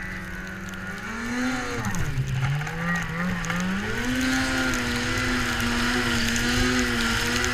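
Ski-Doo 800 snowmobile's two-stroke engine running while riding. The revs dip briefly about two seconds in, then climb and hold steady at a higher pitch as it gets louder.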